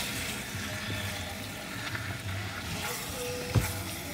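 Chicken, tomatoes and dal sizzling in a steel pan as they are stirred with a wooden spoon, with one sharp knock of the spoon against the pan about three and a half seconds in.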